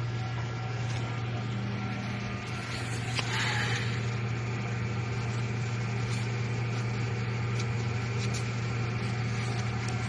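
Steady low machine hum of factory equipment, with a brief hiss about three seconds in and a few faint clicks.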